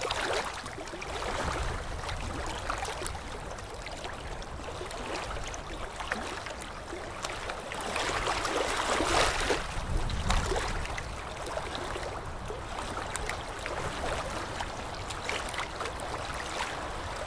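Sea waves washing onto a sandy shore, a steady rush of surf that swells to a louder wash about eight to ten seconds in.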